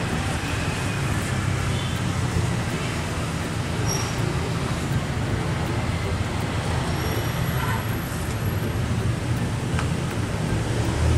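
Steady street traffic noise: a constant low rumble of passing road vehicles.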